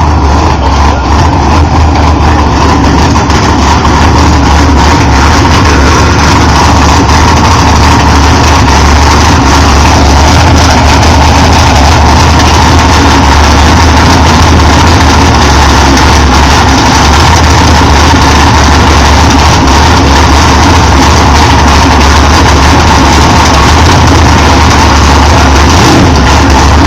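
Race-built small-block Chevy V8 in a 1984 Camaro drag car, running loud and steady through uncapped exhaust on race fuel.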